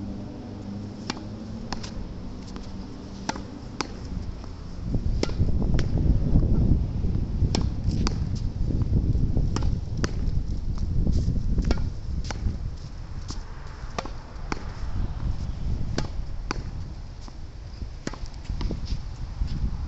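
Tennis ball rallied against a practice wall: a steady run of sharp pops from racket strikes and the ball's bounces, one or two a second. Strong wind buffets the microphone, much louder from about five seconds in.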